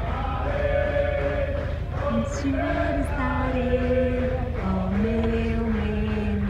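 Singing: a slow melody of long held notes that step up and down, over a steady low rumble.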